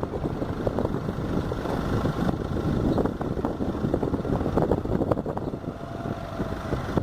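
Vehicle or machinery engine running steadily, with scattered knocks and clatter throughout.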